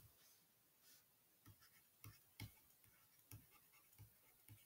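Faint, irregular taps and clicks of a stylus on a tablet screen while handwriting numbers, against near silence.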